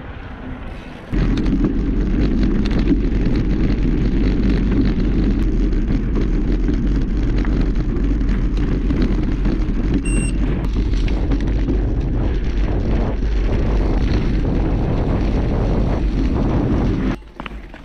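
Heavy wind rumble buffeting the microphone of a mountain bike in motion, with the clicks and knocks of the bike rattling over rough trail. It starts abruptly about a second in and stops just before the end.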